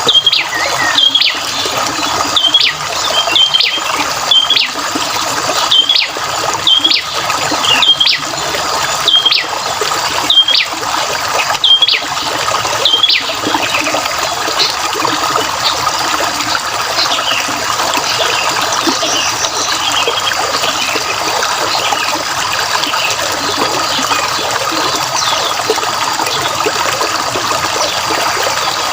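Water trickling and splashing steadily, with a bird repeating a short, sharp chirp roughly once a second for the first dozen seconds or so; after that only fainter, scattered bird calls sound over the water.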